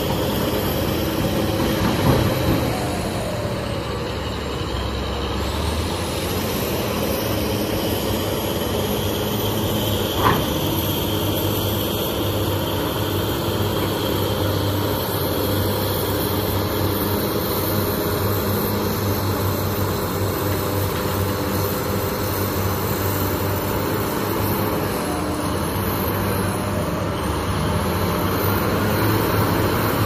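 Diesel engines of BEML BE1000 hydraulic excavators and a crawler bulldozer running steadily while digging and pushing iron ore fines, with two sharp clanks, about two seconds in and about ten seconds in.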